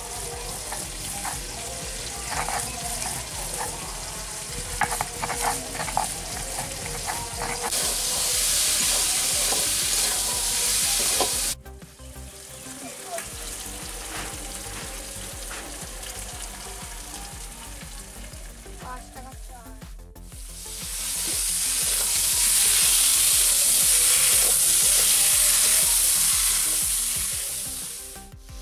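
A stone roller scraping and knocking on a flat grinding stone (shil-nora) at first, then potatoes and drumstick pods frying in a kadai with a spatula stirring them. The sizzle is loudest from about eight seconds in for a few seconds, and again through the last third.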